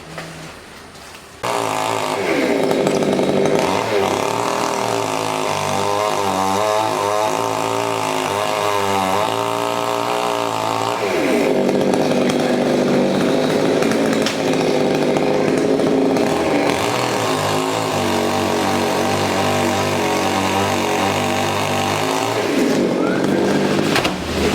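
Chainsaw starting up about a second and a half in, then running loud and steady with its pitch rising and falling as it revs and cuts into the trunk of a coconut palm.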